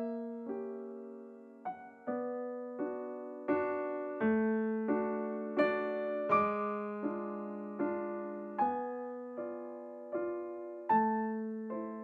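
Background music: a slow, soft piano piece, single notes and chords struck about once or twice a second, each ringing and fading.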